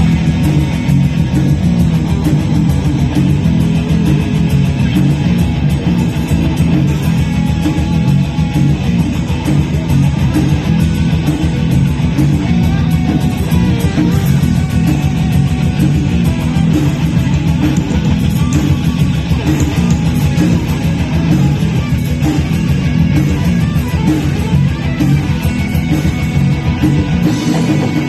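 Live rock band playing loud, dense music with electric guitar, steady and unbroken.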